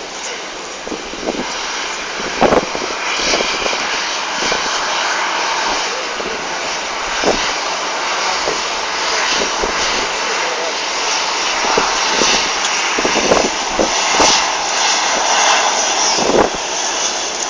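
Jet airliner engines, a steady rushing noise that grows gradually louder toward the end, with scattered short knocks over it.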